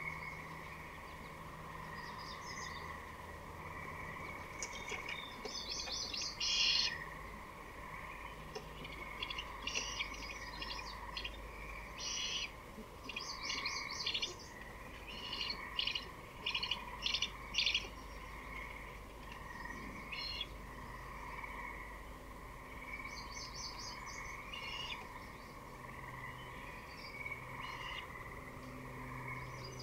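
Great horned owlets' raspy begging calls: short hissing screeches repeated in clusters, most frequent in the middle, over a steady background hum.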